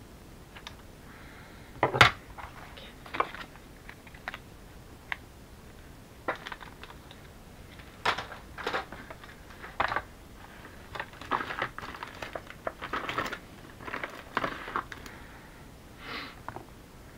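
Irregular taps, clicks and paper rustles of craft supplies being handled and set down on a work desk, with one sharp knock about two seconds in.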